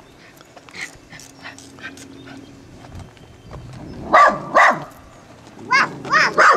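Dandie Dinmont terrier barking at a white tiger pacing behind the fence: two barks about four seconds in, then a quick run of four barks near the end.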